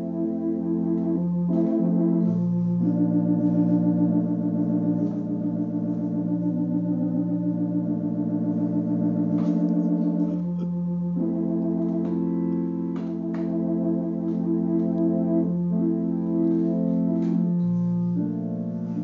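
Two-keyboard home electronic console organ being played: sustained chords with a wavering vibrato over a held bass note that changes every several seconds, with occasional short clicks.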